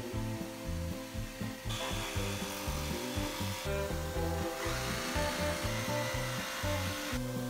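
A power saw cutting the wooden trim of a cabinet opening in two bursts, from about two seconds in and again from about four and a half seconds in, each lasting around two seconds. Background music runs underneath.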